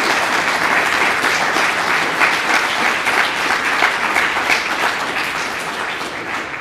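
Audience applauding: many hands clapping at once in a dense, steady run that starts to die away near the end.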